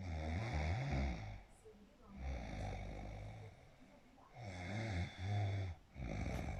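Loud snoring: a rough, rattling snore about every four and a half seconds, twice, with a softer breath between them.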